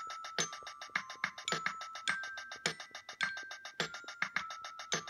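Light instrumental background music: a steady beat of short percussive hits with brief bright synth notes over them, at about two beats a second.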